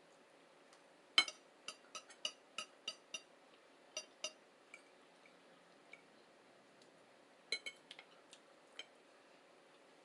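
Cutlery clinking against plates while eating: a quick run of about nine light, ringing clinks over a few seconds, then a few more near the end.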